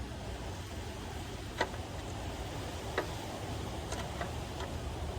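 Low steady hum from the outdoor air-conditioner condenser unit, with a few scattered light clicks of tools being handled.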